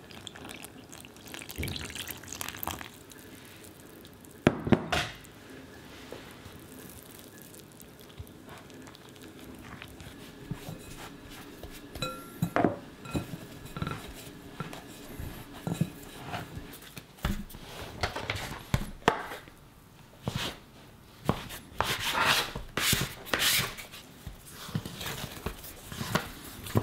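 Liquid poured into flour in a glass mixing bowl, then hands mixing and kneading the dough in the bowl, with uneven knocks and scrapes against the glass. Near the end the dough is pressed and kneaded on a wooden board.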